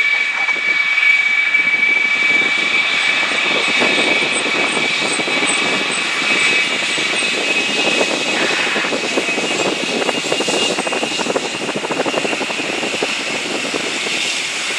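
Jet airliner's engines passing close by: a loud, steady rush of engine noise with a high whine from the fans.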